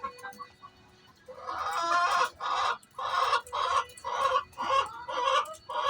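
A hen cackling loudly. About a second and a half in comes one long drawn-out squawk, followed by a run of short repeated squawks about two a second. This is the noisy cackle a hen makes around laying.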